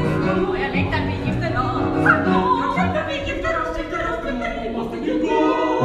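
Musical theatre singers in a classical, operatic style with orchestral accompaniment, performed live on stage.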